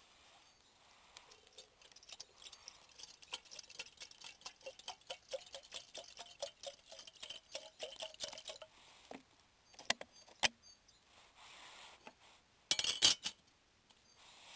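Water glugging out of a plastic bottle as it is poured into an aluminium camping kettle, for about six seconds. A few clicks follow, then a short metallic clatter a second or so before the end, the loudest sound, as the kettle's lid is handled.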